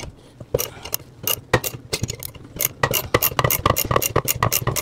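Ratchet wrench clicking as it turns the forcing screw of a bearing puller, drawing the front bearing off the A-type overdrive annulus shaft. It is a run of sharp clicks, sparse at first and quicker and more regular after about two and a half seconds.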